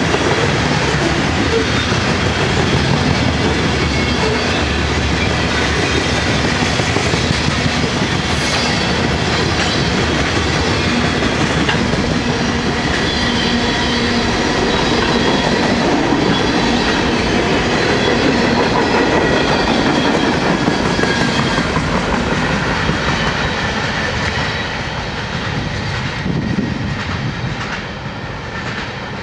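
Freight cars of a long train rolling past close by, the wheels clacking over the rail joints in a steady, dense rattle. It grows quieter over the last few seconds as the end of the train moves away.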